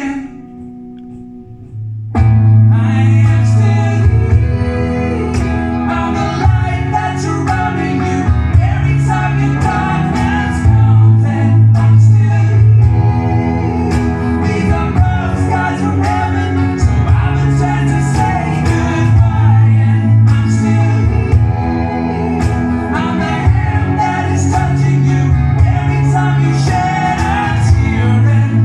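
Live band performing a song with a lead singer. After about two seconds of a quieter held passage, the full band comes in loudly.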